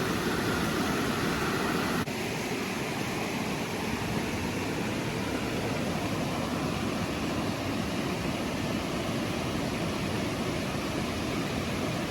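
Steady rushing of a creek tumbling over small waterfalls, an even wash of water noise whose tone shifts slightly about two seconds in.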